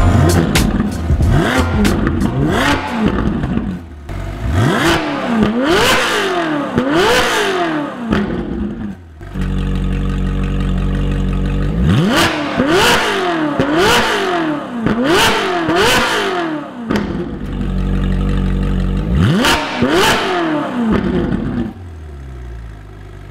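Ferrari 458's naturally aspirated V8 through a Novitec exhaust, revved in repeated quick blips that rise and fall in pitch, in three bursts with a steady idle between them. It quietens near the end.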